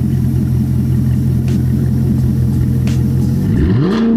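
C7 Corvette's 6.2-litre V8 through a new aftermarket exhaust, catching and settling into a steady fast idle, then revved once near the end with a rising pitch.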